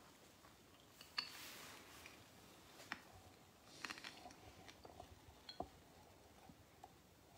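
Near silence with faint rustles and a few small clicks of a chalice and cloth being handled, the sharpest about a second in.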